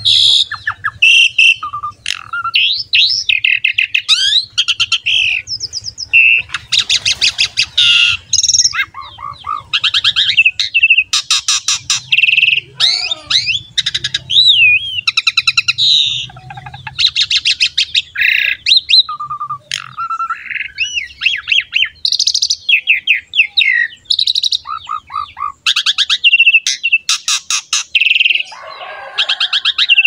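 Asian pied starling (jalak suren) in full, non-stop song: a loud, varied run of rapid rattling note trains, whistled slides and short clear notes with barely a pause.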